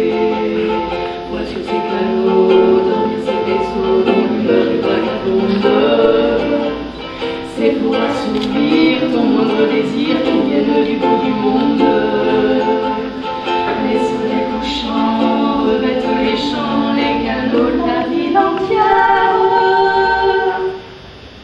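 Two women singing to a ukulele, breaking off briefly right at the end.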